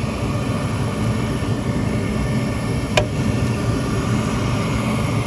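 Steady running noise of a Trane dual-fuel heating unit, with one sharp click about three seconds in.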